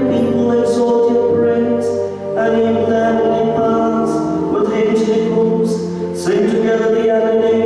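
A priest's solo male voice chanting a prayer of the Mass on long held notes, with short breaks between phrases about two seconds in and about six seconds in.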